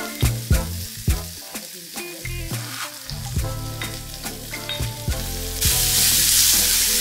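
Chopped onions, garlic, green chillies and curry leaves being scraped with a metal spoon from a plate into hot coconut oil in a clay pot: repeated sharp taps of the spoon on the plate and pot, with a light sizzle. About five and a half seconds in, the sizzling turns suddenly loud as the aromatics fry.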